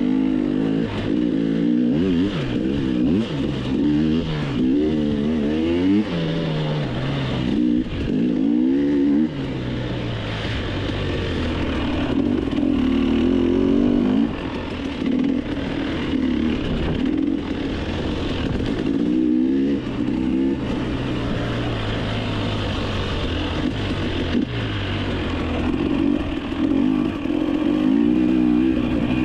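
KTM 300 two-stroke enduro motorcycle heard from on board while being ridden off-road: the engine climbs and drops in pitch over and over as the throttle is opened and closed.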